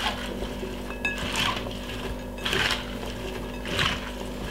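Chopped salad vegetables and lettuce rustling as they are tossed and folded by hand in a glass bowl, in three swishes about a second and a quarter apart, over a steady low hum.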